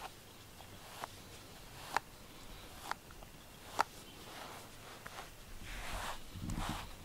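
A pet brush drawn through a cat's fur in repeated brushing strokes, a little more than one a second, starting about halfway through and growing louder. A few sharp, light clicks about a second apart come before them.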